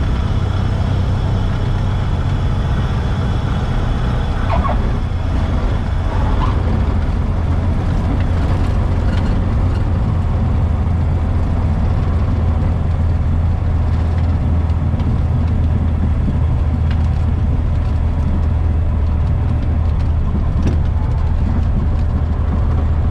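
Cessna 172's piston engine and propeller running steadily at low power, heard from inside the cockpit as a loud, even drone. A couple of short, faint squeaks come about five seconds in.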